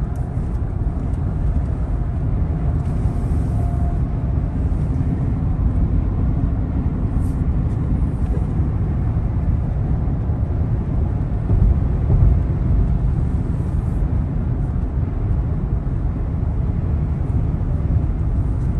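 Steady low road and tyre rumble inside a car's cabin at highway speed, swelling briefly about twelve seconds in.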